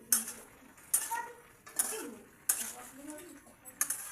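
A metal spoon clinking and scraping against a cooking pan as masala is stirred into the vegetables. There are five sharp knocks, one every second or so.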